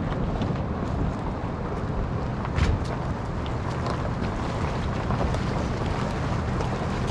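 Wind buffeting the microphone over running water around a drift boat, with scattered light knocks and one louder knock about two and a half seconds in.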